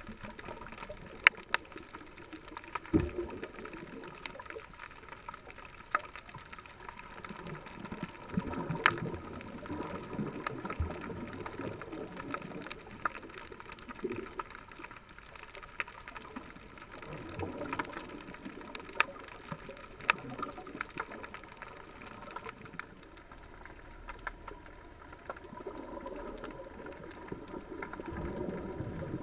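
Underwater ambience heard through a GoPro's waterproof housing: a muffled low swash of moving water, with scattered sharp clicks and crackles throughout.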